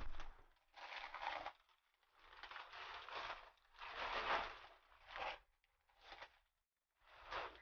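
Black plastic trash bag rustling and crinkling as loose papers and magazines are stuffed into it, in about six short bursts with brief pauses between.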